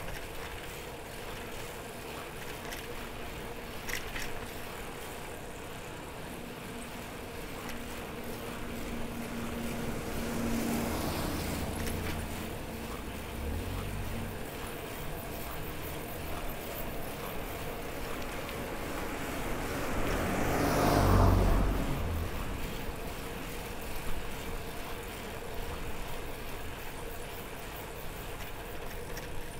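Two cars passing on the road: one swells and fades about ten seconds in, and a second, louder one goes by about twenty-one seconds in.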